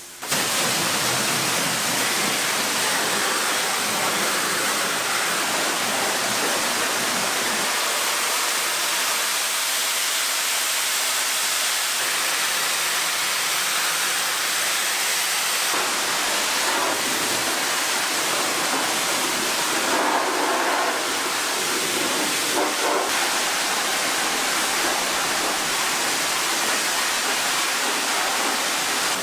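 Car wash high-pressure wand spraying water onto a snowmobile's body, a loud, steady hiss of spray whose tone shifts a few times after the middle.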